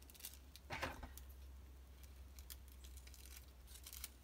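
Faint handling of tissue paper and a dried seed head: a soft rustle about a second in, then light clicks of small scissors snipping the tissue paper near the end, over a low hum.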